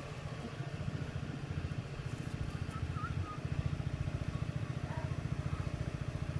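A small engine running steadily, with a rapid, even low thumping.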